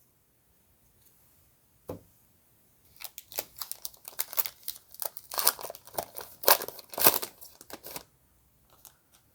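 A trading card pack wrapper being torn open and crinkled: a single click about two seconds in, then about five seconds of crackly tearing and crinkling that stops about eight seconds in.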